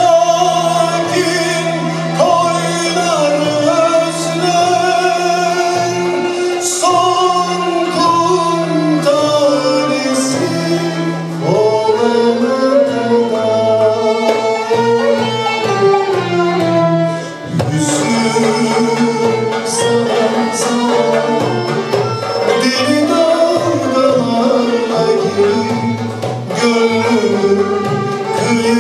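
Male solo voice singing a Turkish classical (Türk sanat müziği) song live, with a traditional ensemble including violins accompanying; the melody moves in long, bending, ornamented phrases.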